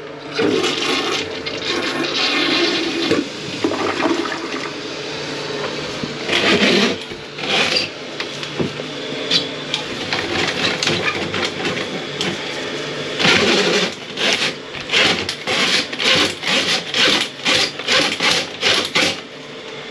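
Water rushing and gurgling in a toilet drain while a drain snake's cable is worked down the line, about six feet in to clear a slow flush. In the second half this turns into a run of irregular scraping knocks, about two a second.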